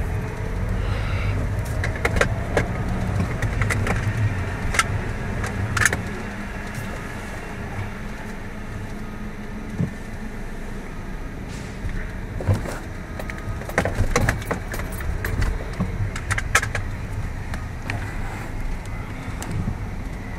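Car running, heard from inside the cabin, its low rumble dropping in level about six seconds in, with scattered clicks and jangling rattles like keys being handled.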